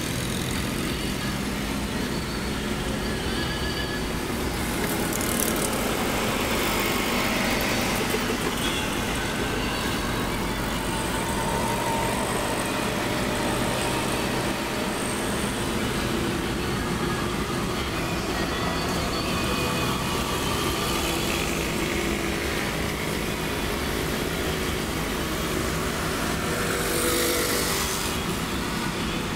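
Car engine and road noise of a moving car in city traffic, with motorcycles running alongside. The traffic gets a little louder about five seconds in and again near the end.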